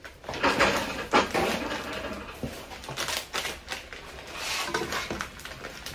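Irregular rustling, scraping and light clatter of food preparation at a frying pan of sliced peppers, onions and chicken.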